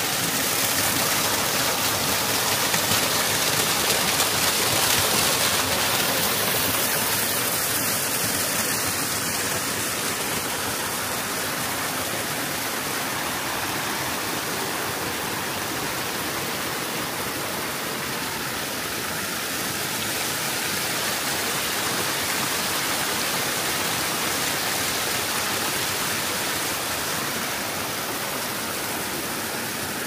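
Water of the Krushuna Falls cascades rushing steadily: a loud, even rush of falling water.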